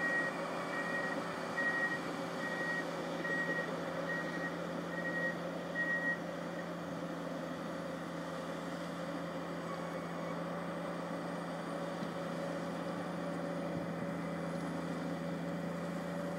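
PistenBully 300 Winch snow groomer's diesel engine running steadily, with its reversing alarm beeping about three times every two seconds until it stops about six seconds in.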